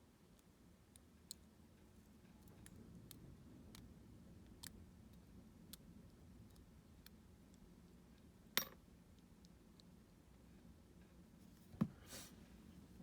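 Faint scattered clicks and taps of a U-Shin Showa NX lock being taken apart, with two sharper clicks, one past the middle and one near the end.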